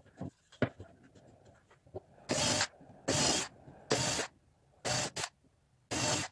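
Woodworking tool working wood in five or six short bursts, each under half a second, starting about two seconds in, after a few faint scratches and clicks.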